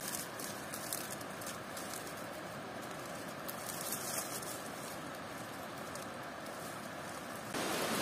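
Steady rush of water from a waterfall, with faint light ticks and rustles over it. Near the end the water sound jumps abruptly louder.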